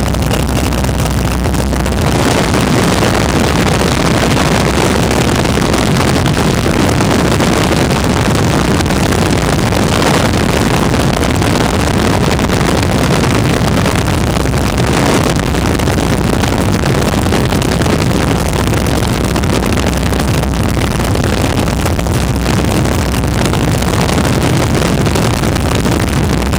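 WACO open-cockpit biplane in cruise flight: the steady, loud drone of the engine and propeller mixed with wind rushing over the microphone. The wind rush grows about two seconds in.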